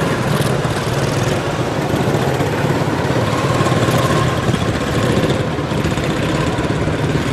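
Several quarter midget race cars' small single-cylinder engines running steadily together.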